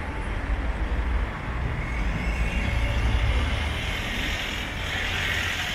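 Street traffic: a motor vehicle passes close by with a low rumble and tyre noise.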